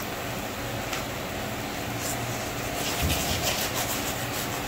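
Oil brush rubbing over a paratha roti on a hot iron tawa: soft scratchy strokes over a steady hiss.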